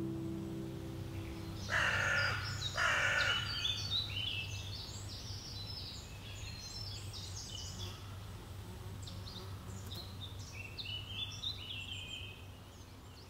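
Two harsh, crow-like caws about two seconds in, then small songbirds chirping and singing high and thin over the low steady rush of a mountain stream in a forest.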